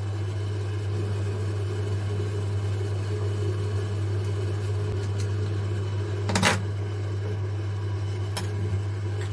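Steady low electrical hum, with a sharp click about six and a half seconds in and a fainter click near the end.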